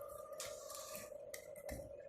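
A faint steady hum with a few light clicks near the end.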